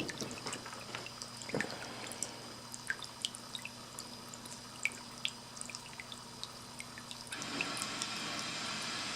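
Water from a stoneware ceramic bubble-up cat fountain, its pump on a medium-low setting, trickling gently with scattered drips over a faint steady pump hum. About seven seconds in the water sound becomes louder and fuller.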